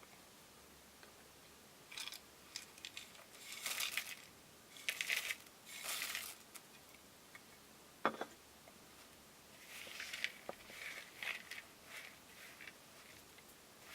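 Baking utensils being handled in a small kitchen: several bursts of scraping and rustling, with one sharp clink about eight seconds in.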